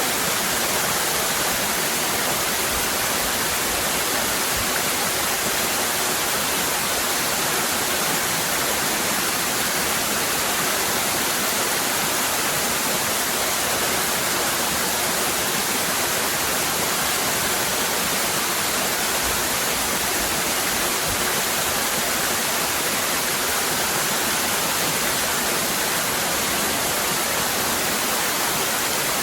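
Waterfall cascading: a steady, even rush of falling water with no let-up.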